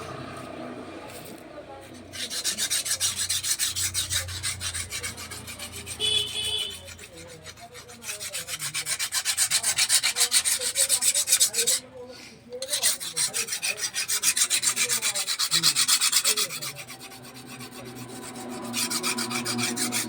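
Fast rasping strokes scraped across steel, in four bursts of a few seconds each with short pauses between them.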